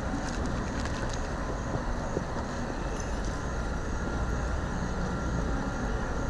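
Steady low engine rumble with a hiss over it, unbroken, like engines or generators running.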